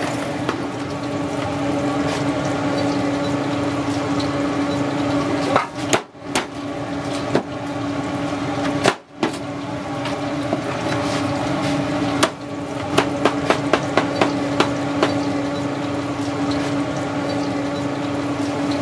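A large knife chopping roast pork on a cutting board, giving sharp chops that come in a quick run of about four a second roughly two-thirds of the way through, over a steady low hum.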